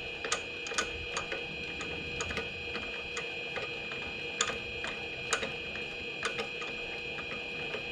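Harbor Freight mini lathe running at low spindle speed: a steady high whine with irregular light clicks.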